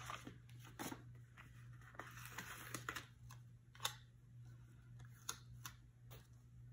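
Faint paper handling: a sticker sheet rustling and an orange box sticker being peeled off its backing and pressed onto a planner page, heard as scattered small ticks and clicks.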